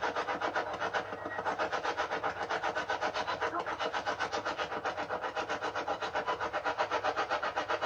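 Spirit box sweeping through radio stations: a steady rasp of static chopped about ten times a second, used for question-and-answer ghost hunting. The investigators take a fragment heard in it for the answer "two".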